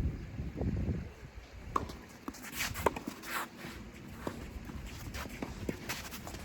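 Scattered footsteps and sharp knocks on a tennis court, with wind rumbling on the microphone in the first second.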